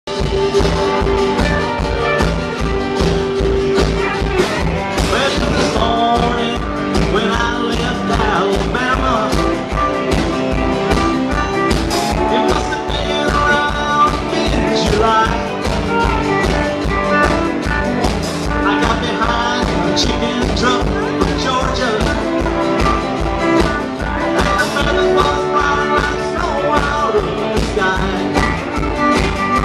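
Live rockabilly band playing an up-tempo country tune: acoustic guitar, electric bass and drum kit over a steady, fast beat.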